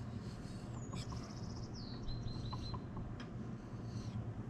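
A songbird singing: a short high whistle, a fast trill, then a falling note and a few quick repeated chirps, all in the first three seconds. Under it runs a steady low hum.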